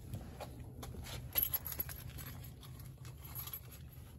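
Footsteps and handling noise as someone climbs into a pickup truck's cab: faint scattered clicks and rustles, with one louder knock about a second and a half in, over a low steady hum.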